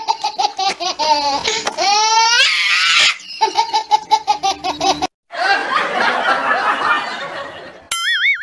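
Laughter, most likely a dubbed laugh track: a rapid run of ha-ha-ha with swooping rising laughs in the middle, cut off suddenly about five seconds in, then a rougher stretch of laughter. A short warbling tone sounds near the end.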